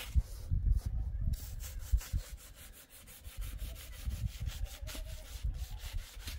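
Rapid rhythmic scraping, several strokes a second, starting a little over a second in, over a low rumble.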